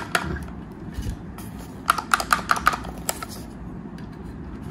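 Light clicks and rattles from handling the metal case of a precision screwdriver kit, with the bits and magnetic screwdriver handle sitting in its tray. A quick run of about six clicks comes about two seconds in.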